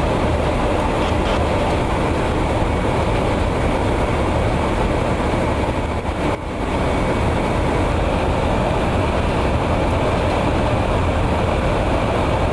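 Steady noise of engines and rushing air inside a Boeing KC-135 Stratotanker in flight, with faint steady tones underneath; it dips briefly about halfway through.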